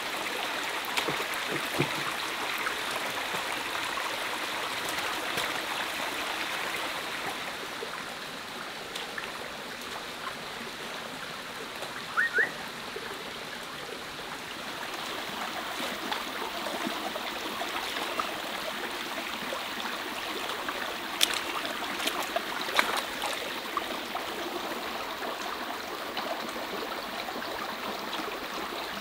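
Small rocky forest stream flowing steadily over stones. A brief high chirp about twelve seconds in, and a few sharp clicks or knocks late on, stand out above the water.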